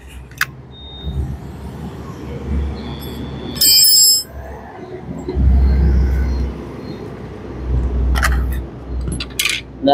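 Metal handling noise as a thick grinding disc is tried on the spindle of a Caowang CW1336 wall chaser: low rubbing and knocking, one ringing metallic clink about four seconds in, and a few sharp clicks near the end. The disc does not fit, because the spindle sits too low for its thickness.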